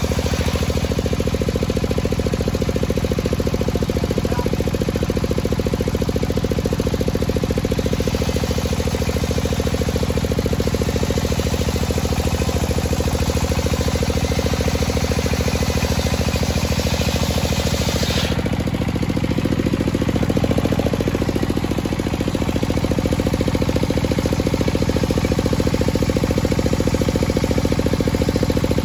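Homemade circular saw ripping a dry teak beam lengthwise: a steady drone from the saw's drive runs under the hiss of the blade cutting through the dense wood. The high cutting hiss eases about two-thirds of the way through while the drone carries on.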